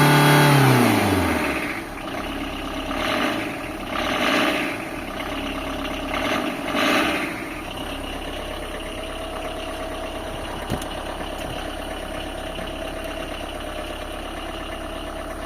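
Tata Indica car engine falling back from a rev to idle, with a few brief surges, then idling steadily with a thin whine over the running note. This is the engine noise the owner presents as a problem.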